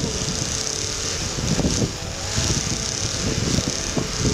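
Lada Niva's engine running hard under load as its wheels spin and churn through deep snow.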